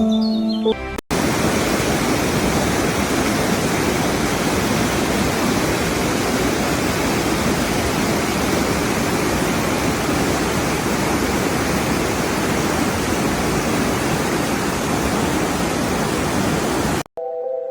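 Steady rushing of falling water, a waterfall's even, full roar with no rhythm. It starts abruptly about a second in, cutting off music with birdsong, and stops just as abruptly shortly before the end, where music takes over.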